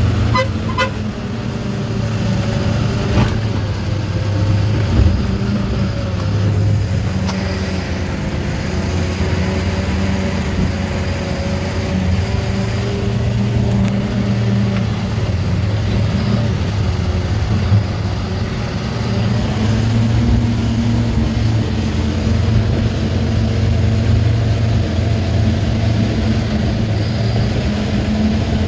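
A heavy vehicle's engine running steadily as it crawls up a rough, unpaved mountain track, its low hum wavering slightly in pitch, with a few short knocks and rattles from the rough ground.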